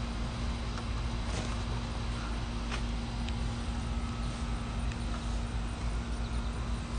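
Steady outdoor background noise with a low rumble and a faint steady hum, broken by a few faint clicks.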